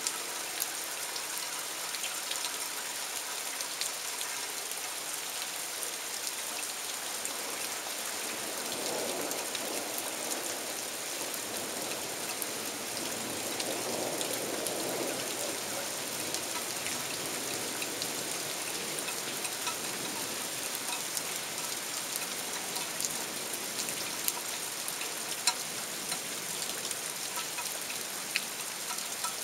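Heavy rain falling steadily, a continuous hiss dotted with many sharp drop ticks. About nine and again about fourteen seconds in, a lower rushing sound swells up briefly.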